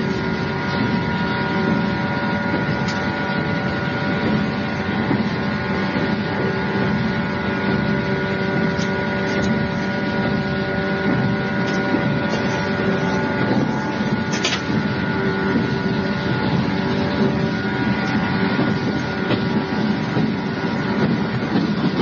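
Steady cabin noise inside an electric train, recorded on cassette tape: an even rumble with a constant hum over it, and a brief click about two-thirds of the way in.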